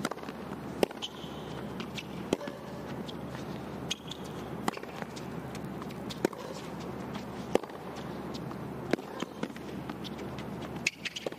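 Tennis rally: racquets strike the ball in turn, each hit a sharp pock, about one every one and a half seconds, over a steady background hum.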